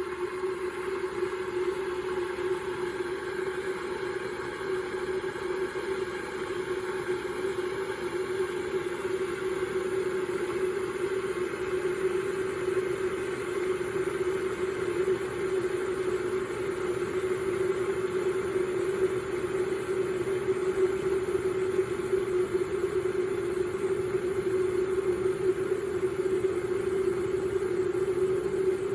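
Water heating in a kettle as it nears the boil: a steady hum with a rising rumble and hiss over it, growing gradually louder.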